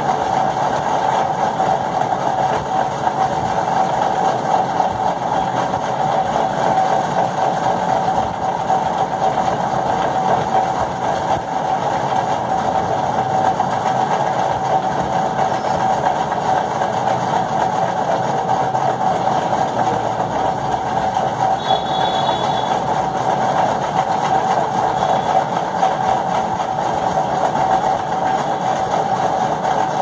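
Steady machine hum with a constant tone, like a fan or small motor running, unchanged throughout.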